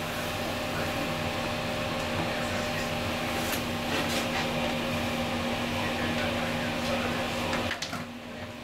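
Steady running hum inside a heritage 1500 V DC electric train car, with a constant low tone under it; the sound drops suddenly near the end.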